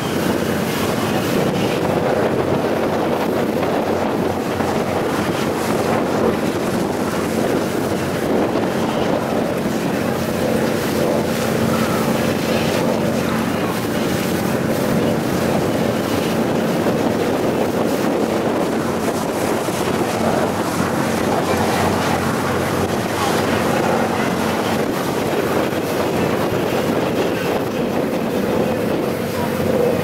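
Tour boat under way: its engine running at a steady hum, with water rushing past the hull and wind buffeting the microphone.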